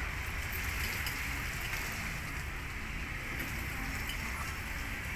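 Steady ferry-port ambience: a low engine rumble under an even hiss, with no distinct events.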